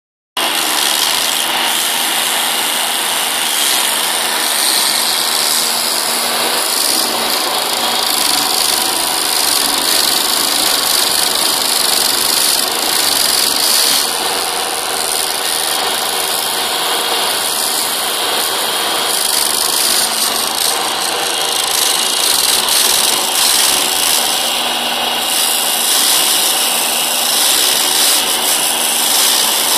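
Stump grinder attachment on a Case CX27B mini excavator running, with the excavator's diesel engine under it. It is a loud, steady mechanical noise with a strong high hiss that starts just after the beginning and holds without a break.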